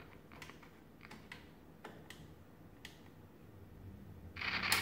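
Scattered light clicks and ticks, about six spread over the first three seconds, over a faint steady low hum; a short burst of hiss comes near the end.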